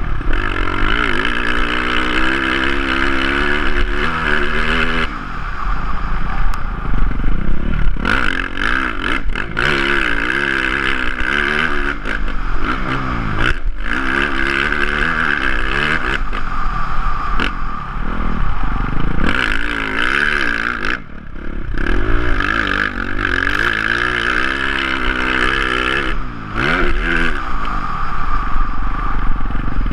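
Motocross dirt bike engine, recorded onboard, revving hard and falling away over and over as the throttle is opened and shut through the lap. The revs drop sharply and climb again about four times, near 5, 13, 21 and 26 seconds in.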